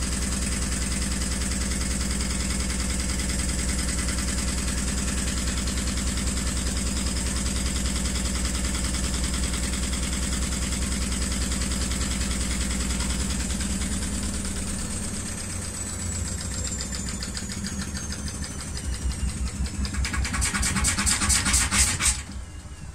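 Hotpoint AQXL105 washer-dryer drum spinning at high speed with a steady hum and high whine. From about halfway through the spin winds down and the whine falls in pitch. Near the end the badly unbalanced load sets off a rhythmic knocking and rattling that grows louder, then stops abruptly.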